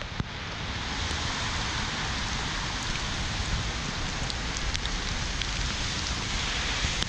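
Steady rain falling on the wet footpath and plants, mixed with wind noise on the microphone, with a few faint ticks of drops.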